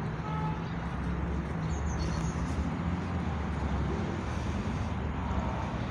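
Steady low rumble of distant road traffic, with a few faint high bird chirps about two seconds in.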